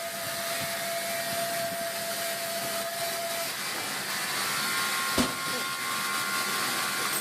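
A woodworking machine or power tool running steadily, with a single sharp click about five seconds in.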